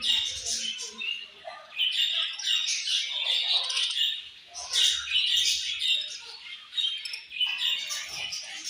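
Several budgerigars chirping and warbling at once in a steady, busy chatter of quick, high calls.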